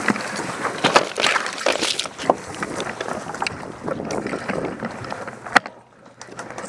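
Footsteps and rustling as a player pushes through tall grass and walks a dirt path, with a run of small clicks and brushing noises, and one sharp click about five and a half seconds in.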